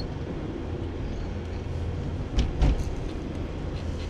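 Steady engine and tyre rumble inside a car driving at about 40 km/h, with two or three short knocks about two and a half seconds in.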